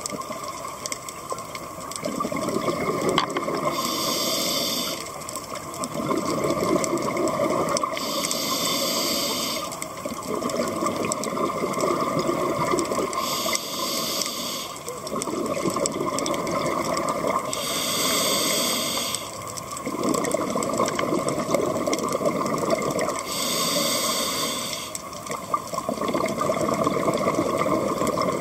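Scuba diver breathing through a regulator underwater: a short hiss of inhalation, then a longer rush of exhaled bubbles, repeating about every five seconds.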